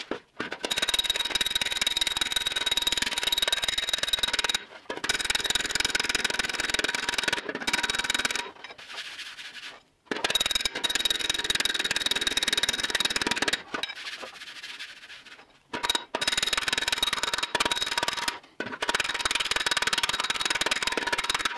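A slapper file striking a steel fender in sped-up footage. The slaps run together into a fast metallic clatter with a ringing tone from the sheet metal. It comes in about five runs broken by short pauses.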